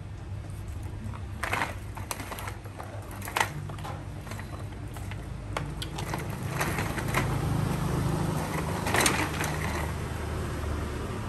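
Light plastic clicks and knocks from a baby walker's toy tray being handled, scattered and irregular, over a steady low hum.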